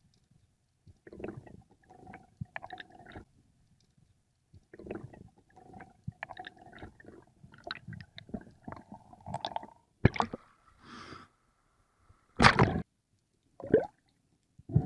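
Underwater noise picked up by a camera in rough surf water: scattered crackling and clicking, then a sharp knock about ten seconds in and a few loud short gurgling bursts near the end, while a speared fish is drawn in on the shaft line.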